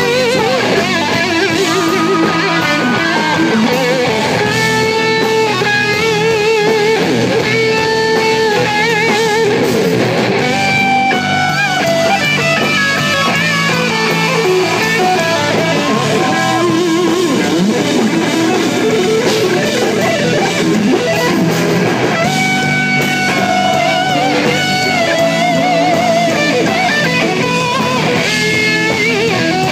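Live rock band with an electric guitar playing a lead solo: long held notes with wide vibrato and bends, over bass and drums.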